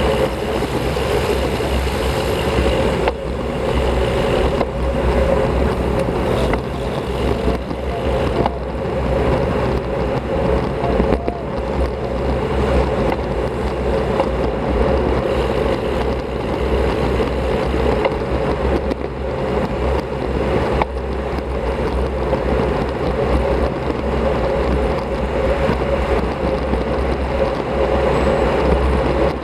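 Steady wind rushing over an action camera's microphone while riding a road bike at speed, with a low rumble and continuous rolling noise from the road.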